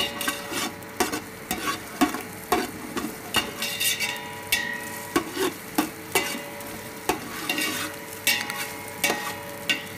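A perforated steel spatula stirs and scrapes against a steel pot, about two strokes a second, over a light sizzle of chopped ginger, garlic and green chillies frying in a little oil.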